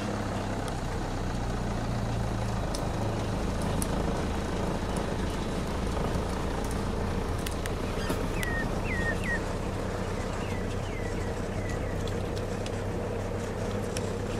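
Vehicle engine idling steadily, with a handful of short, high chirps a little past halfway through.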